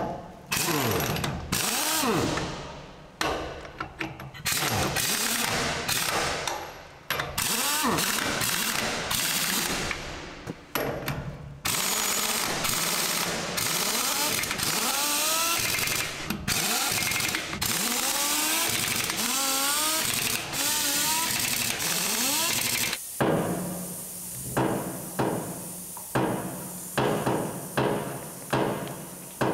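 Pneumatic impact wrench hammering lug nuts onto a semi truck wheel, in long runs, its motor pitch rising and falling between nuts. In the last several seconds an air-hydraulic bottle jack pumps in a steady rhythm, about two thumps a second.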